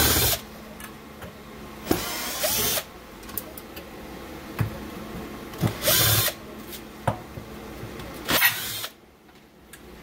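Cordless drill running in four short bursts as it drives screws out of a sheet-metal shroud, with a steady machine hum underneath.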